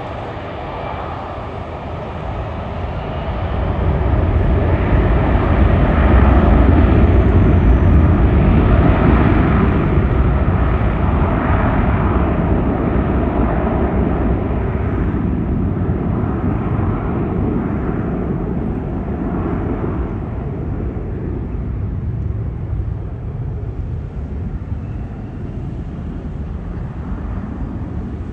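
Airplane engine noise swelling to a loud pass a few seconds in, then slowly fading as the aircraft moves away.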